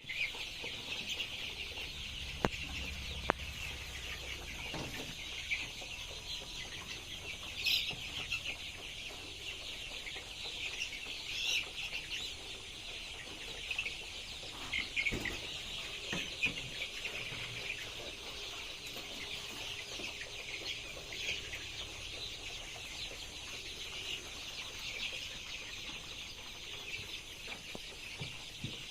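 A flock of Sonali chickens chirping and clucking, many birds calling at once in a continuous chatter, with a couple of sharp clicks a few seconds in.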